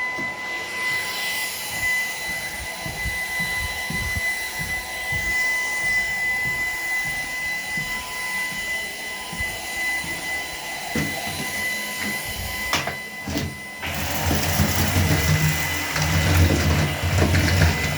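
Shark PowerDetect robot vacuum running with a steady high whine. About 14 seconds in, the sound turns louder and rougher, with more low rumble.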